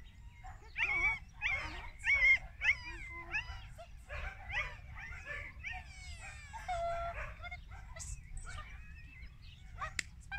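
Dog whining with a string of short, high yelps that rise and fall in pitch, a few each second.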